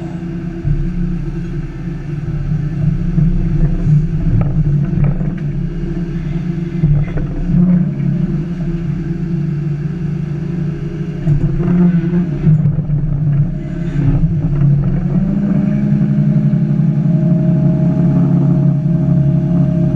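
Hyundai 380 long-reach excavator's diesel engine running under changing load, its drone rising and easing as the hydraulics work, with a few short knocks along the way.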